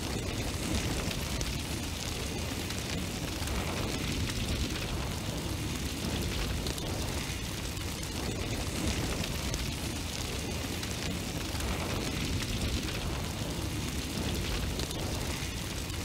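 Steady roaring rush of a flame burning, with no clear pitch or rhythm.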